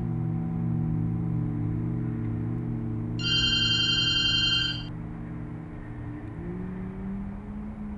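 Electronic telephone ring: one warbling ring lasting under two seconds, about three seconds in, following an earlier ring. Underneath, a steady low hum shifts up in pitch near the end.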